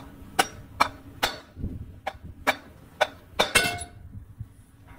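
Sharp metallic taps and clinks, about eight at uneven intervals, the loudest about three and a half seconds in, as a tool and loose parts knock against the finned aluminium housing of a MAN truck's viscous fan clutch while it is being taken apart.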